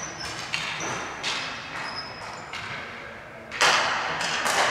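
Ball hockey play echoing in a large hall: sticks and a plastic ball knocking, short high squeaks, and one loud bang about three and a half seconds in.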